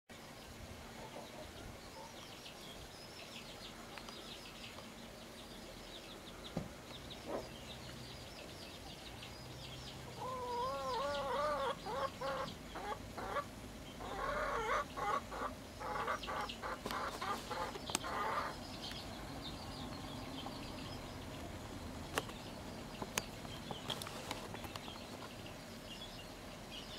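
Brooding hen clucking with her chicks peeping under her. Faint high peeping runs through, and from about ten seconds in the hen gives a few low calls and then a quick run of clucks lasting about eight seconds, after which the peeping goes on with a few sharp clicks.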